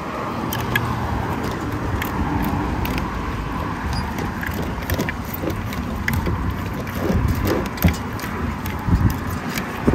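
Road traffic running by on the highway bridge, a steady rumble that swells in the first few seconds, with scattered light clicks of plastic spoons in a plastic bowl as a fish salad is tossed.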